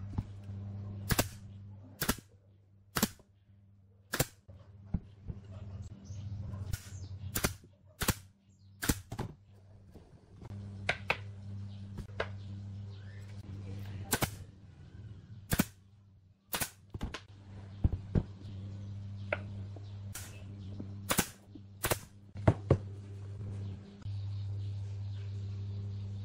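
Pneumatic nail gun firing nails into pine wood: sharp single shots, about twenty, at irregular intervals and some in quick pairs, over a steady low hum.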